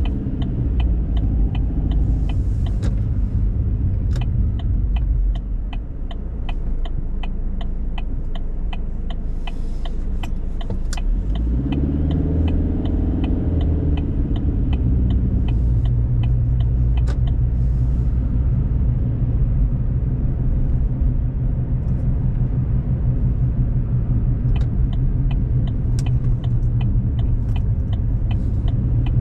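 A car driving, heard from inside the cabin: steady engine and road rumble. Even, rapid ticking of the turn signal runs through the first half and stops after about seventeen seconds. About twelve seconds in, the engine note rises briefly as the car accelerates.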